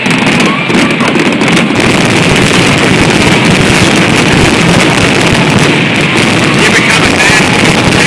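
Fireworks barrage, the booms and crackles running together into a loud, continuous rumble without distinct gaps.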